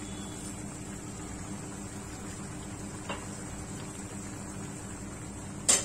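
Chicken in curd gravy simmering in a wide pan on a gas stove, under a steady low hum. A faint tap comes about three seconds in and a sharp click near the end.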